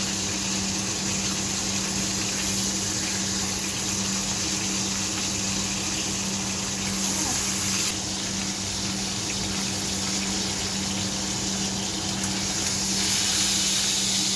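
Beef steak sizzling in oil in a frying pan: a steady hiss that shifts a little in brightness partway through, over a constant low hum.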